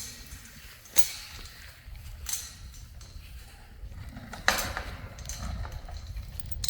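A few sharp knocks: one about a second in, another a little over two seconds in, and the loudest about four and a half seconds in, over a steady low rumble.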